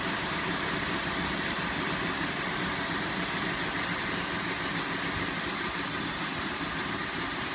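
2005 Cadillac DeVille's Northstar V8 idling steadily but misfiring badly, not a normal idle. The owner suspects the spark plugs.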